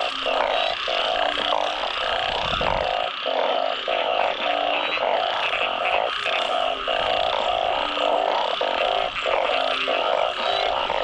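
Dense chorus of many frogs calling together, a breeding chorus after heavy rain, with short calls overlapping and repeating without a break. A brief low rumble comes about two and a half seconds in.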